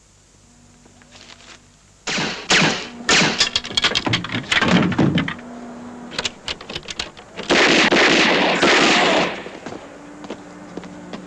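Film gunfight sound effects: rapid cracks of automatic gunfire starting about two seconds in, then a loud, sustained noisy burst lasting about two seconds, followed by scattered lighter knocks.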